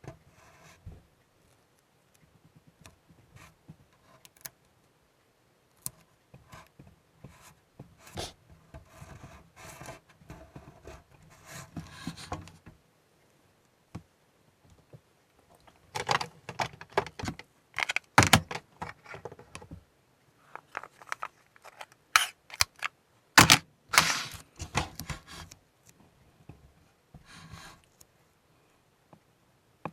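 Small hard objects being handled and set down at a work table: scattered clicks, taps and short scrapes and rattles, busiest in two spells about two-thirds of the way through.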